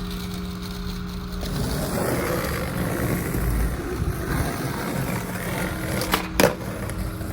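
Skateboard wheels rolling over pavement, then near the end two sharp clacks of the board, the second louder: a frontside 180 attempt, popped and slapped down.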